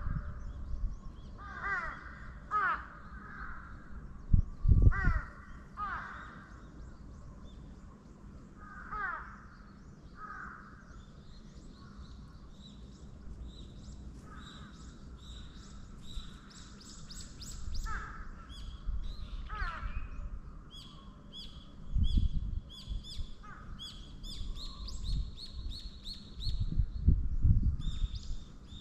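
Crows cawing over and over in short falling calls, joined from about halfway through by small birds chirping rapidly and high. A few dull low rumbles break in, the loudest about five seconds in and others near the end.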